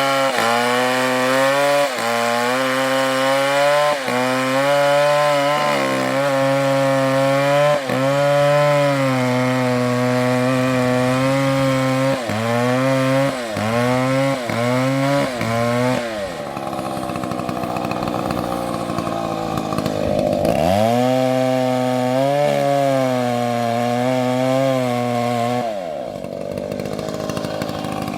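Chainsaw engine running at high revs with short throttle dips about every two seconds, then several quick dips in a row. About halfway through it falls to a lower, rougher running, sags and climbs back up, then drops in pitch again near the end.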